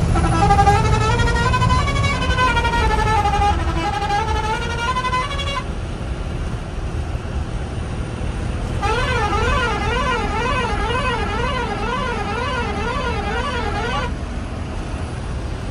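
A truck's electronic musical horn plays a tune that glides slowly up and down for about five seconds, then after a pause a fast, even warbling tone for about five seconds, over the steady rumble of the truck's engine in the cab.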